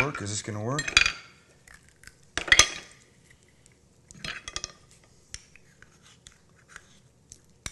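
Clam shells and a metal knife clicking and scraping against a ceramic plate as the shells are worked apart. One loud clack comes about two and a half seconds in, then scattered lighter clicks.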